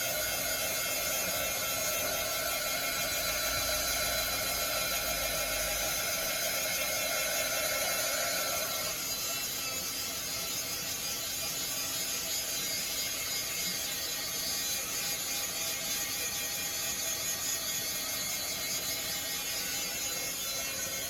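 Craft heat tool running, its small fan blowing hot air with a steady whir; the tone shifts lower and slightly quieter about nine seconds in, then holds steady.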